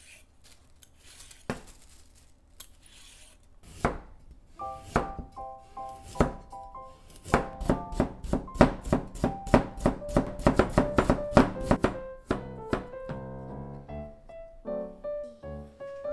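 Kitchen knife chopping carrot on a plastic cutting board, quick even strokes at about four a second, after a vegetable peeler scraping along a carrot in the opening seconds. Light piano background music comes in about four seconds in.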